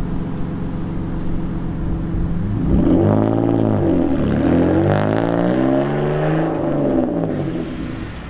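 E46 BMW 3 Series sedan's engine pulling away hard: a steady low running note at first, then revving up and falling back in pitch a few times as it accelerates, fading off as the car drives away near the end.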